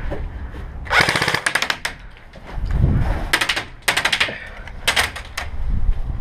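Airsoft guns firing on full auto: four rapid bursts of fast, even clicks, the first and longest lasting about a second, the others shorter.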